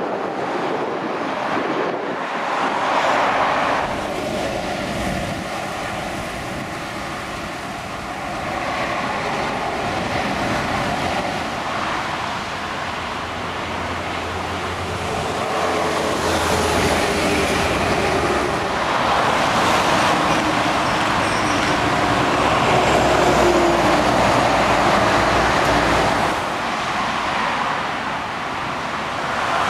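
Road traffic passing on a dual carriageway: lorries and cars going by with tyre noise and a low diesel engine drone. The noise swells and fades as vehicles pass, loudest in the second half.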